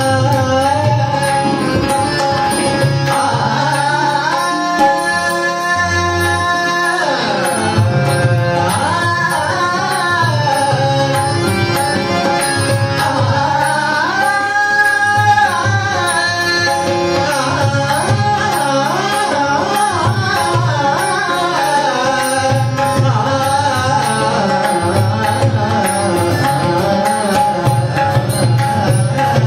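Devotional bhajan music: a harmonium playing the melody, with held chords, over a steady hand-drum rhythm, and singing voices at times.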